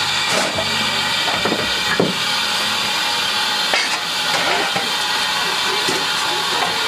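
Steady steam hiss on the footplate of a 1924 Hudswell Clarke steam locomotive, with scrapes and a few sharp knocks of a coal shovel as the fire is fed through the firehole.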